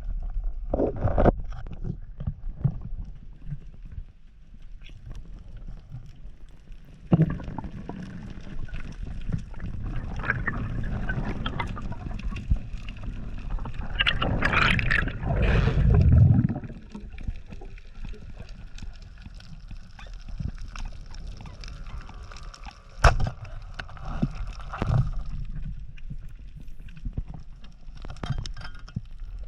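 Water gurgling and sloshing heard underwater, swelling to its loudest about halfway through, with one sharp click about three-quarters of the way in.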